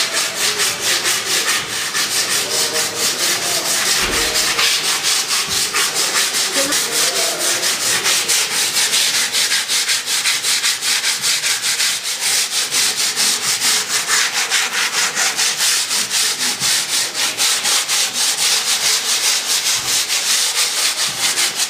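Sandpaper rubbed by hand along the edge of a fibreglass (GRP) boat moulding in quick, even back-and-forth strokes, making a steady rhythmic rasp.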